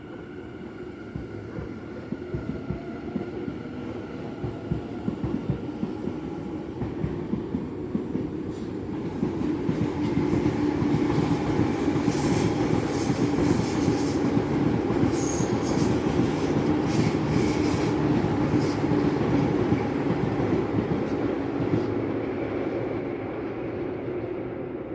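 Tobu Tojo Line electric train passing: the rolling noise builds, holds loud for about twelve seconds, then eases off near the end. Through the loudest stretch the wheels clack in a quick, even rhythm over the rail joints.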